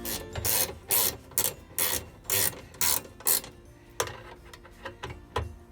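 Ratchet spanner clicking in short strokes, about two a second, as bolts are done up loosely; the strokes thin out after about four seconds.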